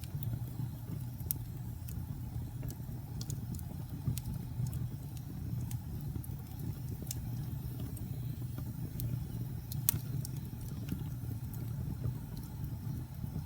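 Wood fire burning, with a steady low rumble of the flames and scattered sharp crackles and pops of the burning wood, one pop louder than the rest about ten seconds in.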